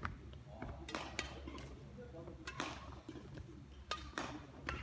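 Badminton rally: a series of sharp racket strikes on the shuttlecock with players' footwork on a wooden court, each hit ringing briefly in a large echoing hall.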